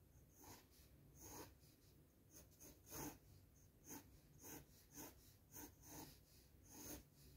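HB graphite pencil sketching lightly on drawing paper: a dozen or so short, faint scratching strokes at an uneven pace.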